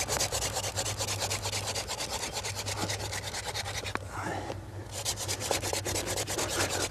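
Hand-drill friction fire-lighting: palms rubbing fast back and forth on a thin spindle, which grinds in its notch in a wooden fireboard in quick, even scraping strokes. The strokes break off for under a second about four seconds in, then start again. Smoke is rising from the drilled hole.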